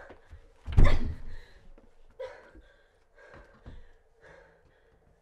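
A heavy thump about a second in as one person shoves another into a closet. Softer scuffling and gasping breaths follow.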